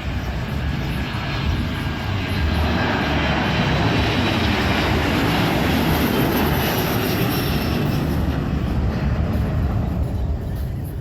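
Airliner's engines as the plane passes close by the airfield: a loud rumble that builds over the first couple of seconds, holds, and fades near the end, with a faint whine that falls in pitch.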